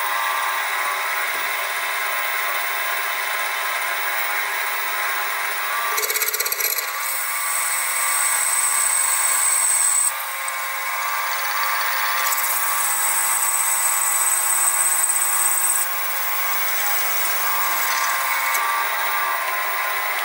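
Sieg SX2P mini mill spindle running at 1000 RPM with a steady motor whine while a quarter-inch reamer cuts through brass bushes. Twice, from about six seconds in and again around the middle, the cut adds a high squeal and hiss as brass chips fly.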